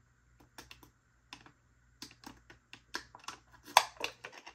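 Drinking from a thin plastic water bottle: a run of sharp clicks from swallowing and the crackling plastic, sparse at first, then quicker and louder toward the end.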